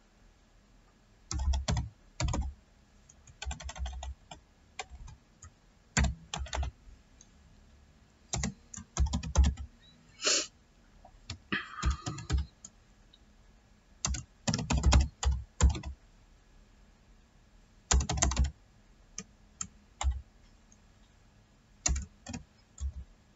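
Typing on a computer keyboard: irregular runs of key presses broken by short pauses.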